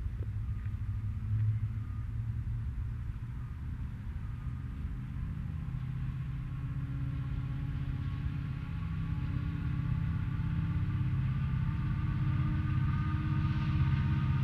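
Low steady rumble, with the drone of approaching diesel locomotives (a BNSF SD70ACe and SD70MAC leading a coal train) growing gradually louder toward the end.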